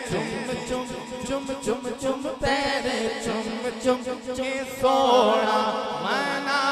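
A man singing a naat through a microphone and PA system over a steady held background tone, with a regular beat in the first couple of seconds. A louder sung phrase comes in about five seconds in.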